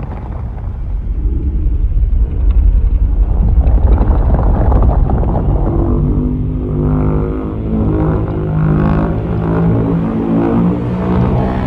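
Deep, heavy rumble from a monster-film sound effect, with a low sustained droning chord joining about six seconds in.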